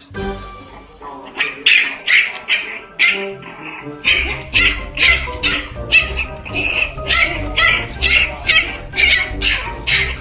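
Background music with a steady beat, with a strong bass coming in partway through.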